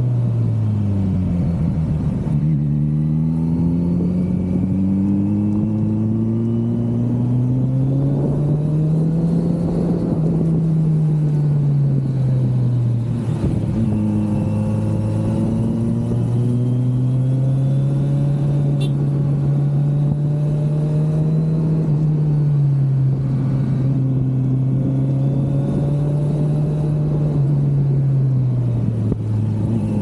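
Kawasaki Z900's inline-four engine riding through bends, its note falling as the throttle closes and climbing again as it pulls, several times over, with one long steady climb lasting several seconds.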